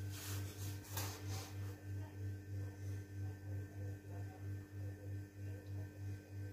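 A low electrical hum that swells and fades evenly about three times a second, with a couple of faint clicks near the start.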